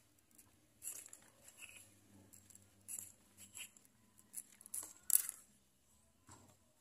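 A knife blade sawing through a Philodendron White Wizard stem: a series of short, crisp scrapes, the loudest about five seconds in.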